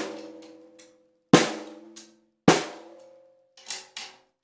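Ludwig Black Beauty 5x14 hand-hammered brass snare drum struck: one hit rings into the start, two full hits follow about a second apart, then two lighter taps near the end. Each hit rings on with several pitched overtones. The batter head is still factory-loose and untuned, so loose it is barely on.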